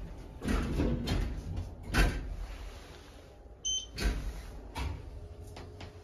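Schindler 3300 elevator car doors shutting, with a sharp clunk about two seconds in, then a short electronic beep from its touch-sensitive button panel a little past halfway. Further clunks follow, and a faint steady hum starts near the end as the car gets under way.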